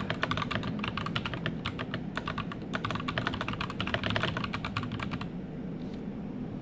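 Typing on an FFC61 61-key keyboard fitted with TECSEE Purple Panda tactile switches: a fast, dense run of keystrokes that stops about five seconds in, leaving only a steady low background noise.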